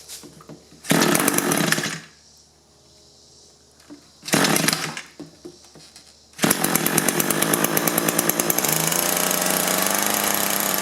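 Echo two-stroke hedge trimmer engine pull-started on choke: it fires briefly twice and dies, then catches about six seconds in and keeps running steadily. It now starts because its fuel supply and return lines have been put back the right way round.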